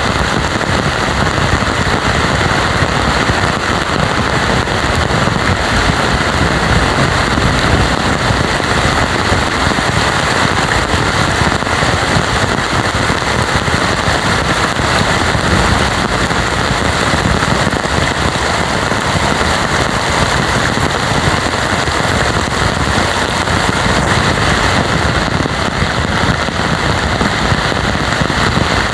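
Heavy rain pouring steadily, a dense, even patter of close drop hits with a faint crackle.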